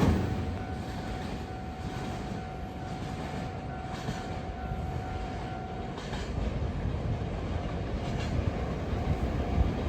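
Freight train of Taki 1000 tank wagons rolling past, its wheels clacking now and then over rail joints. A thin steady whine runs for the first several seconds and then stops.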